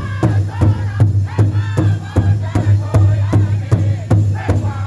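Powwow big drum struck in a steady beat of about three strokes a second, with a group of singers carrying high, gliding vocal lines: a northern-style intertribal song.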